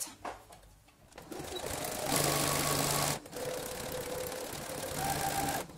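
Brother CS6000i computerized sewing machine, fitted with a walking foot, starting a line of stitching a second or so in. It runs loudest for about a second, stops briefly, then runs on steadily at a lower pitch, as it locks the start of the seam with backstitching and sews forward.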